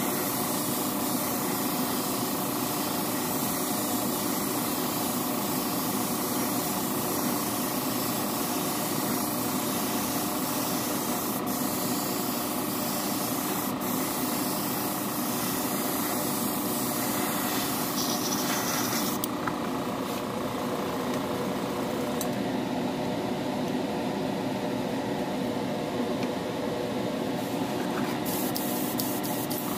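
Airbrush spraying a thinned flow coat of clear: a steady hiss over a steady motor hum. About two-thirds of the way through, the hiss drops away while the hum runs on.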